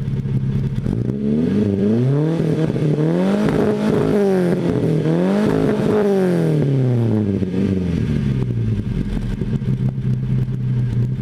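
The modified 2.0 litre Pinto four-cylinder engine of a 1978 Ford Capri, heard at its exhaust tailpipe. It idles, is revved up and let fall back twice, and settles to a steady idle about eight and a half seconds in.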